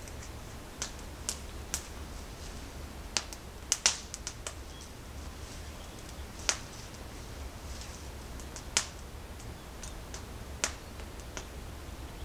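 Wood campfire crackling: about a dozen irregular sharp pops, loudest around four seconds in, over a quiet steady low background.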